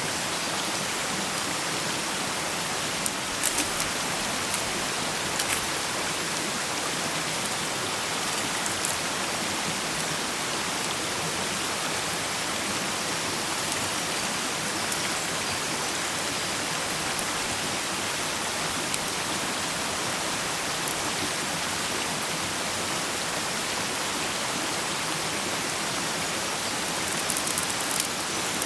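Food frying in a pan over a campfire: a steady sizzling hiss with a few sharp pops, a cluster about three to five seconds in and again near the end.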